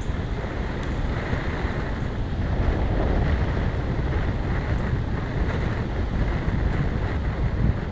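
Steady wind noise buffeting the microphone of a camera moving along with a cyclist on a road, a continuous low rushing with no let-up.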